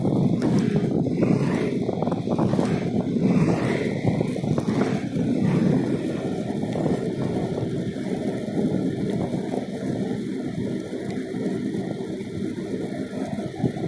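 Steady low rushing of wind over the microphone and wheels rolling on asphalt while moving along the road, with some irregular rattly noise in the first half that eases off.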